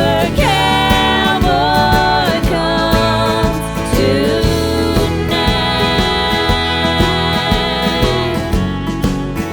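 Background music: an upbeat song with a singing voice over a steady beat and instruments.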